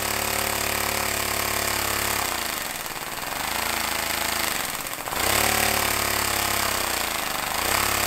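Compressed air engine running fast with rapid exhaust pulses, its pitch falling about two seconds in as the piston throttle valve is pushed down, rising back after five seconds, then dipping and recovering once more near the end: the throttle is slowing the engine as intended.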